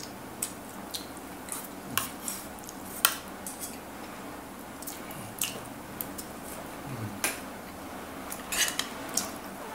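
Spoon and fork clinking and scraping against ceramic plates while eating. It comes as a dozen or so short, sharp clinks at irregular intervals.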